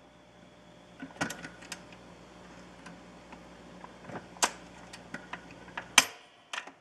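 1958 Columbia 360 portable phonograph's 4-speed VM record changer cycling at the end of play: a low steady hum under a series of light mechanical clicks as the tone arm returns to its rest. A sharp click about six seconds in is the loudest, and the hum stops with it as the unit shuts off.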